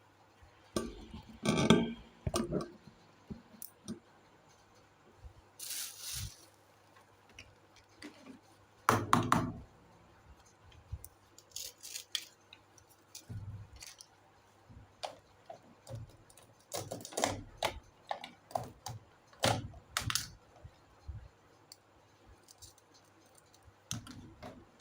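Small plastic toy kitchen pieces being handled, knocking, clicking and clinking against each other at irregular intervals, with a short rustle about six seconds in.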